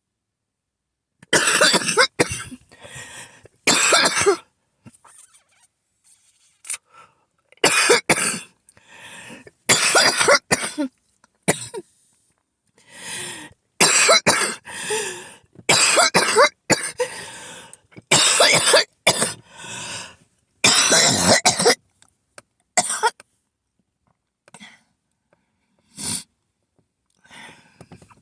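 A person's harsh coughing fit: repeated clusters of hacking coughs for about twenty seconds, with quieter sounds between the bursts, then a few single, fainter coughs near the end. The person calls it an asthma attack.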